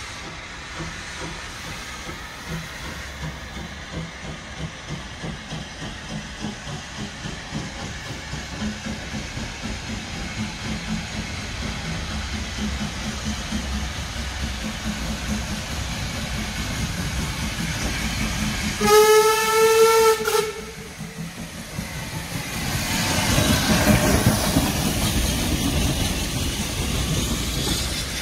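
Hunslet Austerity 0-6-0 steam locomotive working, its exhaust beats steady and slowly growing louder. About two-thirds of the way in it sounds one blast of its steam whistle lasting about a second and a half. A loud rushing hiss follows, swelling and then easing off.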